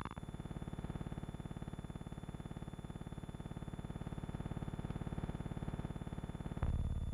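Steady electrical buzzing hum with many overtones and a fast pulsing texture. Its tone shifts abruptly just after it begins, and again about six and a half seconds in, where it turns louder and deeper.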